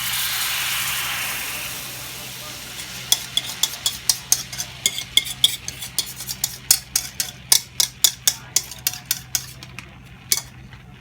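A hiss that swells and fades over the first couple of seconds, then a utensil stirring in a pot, clicking against its sides about three times a second, plausibly while cooking the cocoa, milk and sugar frosting.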